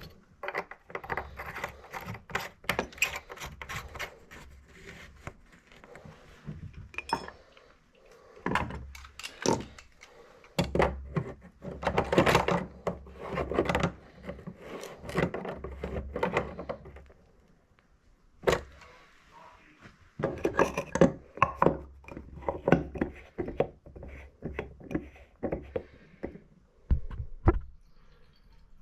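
Irregular clicking, clinking and scraping of a metal pick and hand tools working in a Valley tub/shower valley body, hacking at a stuck old seat cup to break it apart and get it out, in uneven clusters with short pauses.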